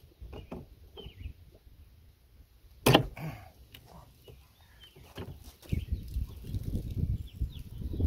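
Hand tools clinking and knocking on metal as a wrench is worked on the nut of a seized, corroded RV storage-bin cam lock, with one sharp clank about three seconds in. Low rumbling handling noise in the last two seconds.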